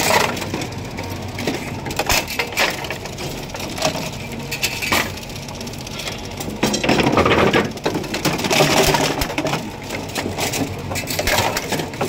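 Half-scale bowling pinsetter cycling: machinery running with a steady clatter of bowling pins and metal parts knocking and rattling, louder a little past the middle. It is a test cycle after the 10-pin spotting cup has been moved forward.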